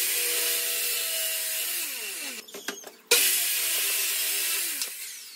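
Circular saw running along an aluminium guide rail, trimming pallet boards: two runs of about two seconds each, each starting abruptly and ending as the blade spins down with a falling whine. A few clicks sound between the cuts.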